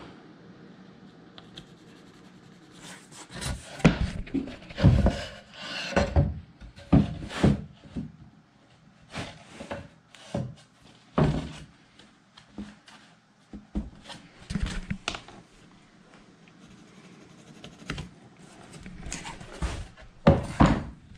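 Laminate flooring planks being handled and fitted on a kitchen subfloor: irregular wooden knocks, thunks and scraping rubs, in clusters starting about three seconds in and again near the end.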